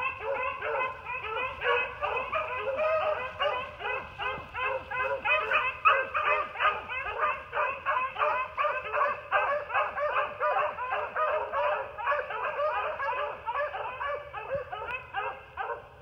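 A pack of beagles baying and barking without a break, many overlapping voices several times a second: hounds in full cry on a rabbit's trail. The chorus falls away near the end.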